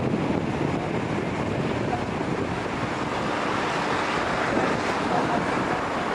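Wind buffeting a camcorder's built-in microphone: a steady rumbling rush.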